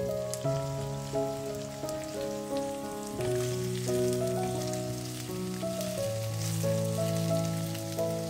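Background music with held notes that change every second or so, over zucchini chunks sizzling in a hot frying pan with a fine crackling hiss.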